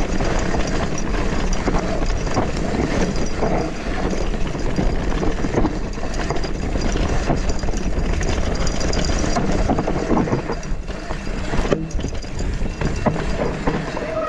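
Mountain bike rolling fast down a dirt forest trail: tyres rumbling over the ground and the bike rattling with a constant clatter of small knocks, with wind rushing on the microphone.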